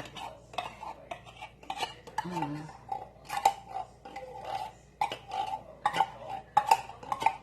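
Metal spoon scraping and clinking against cookware in irregular strokes, with a faint ringing from the metal between strokes.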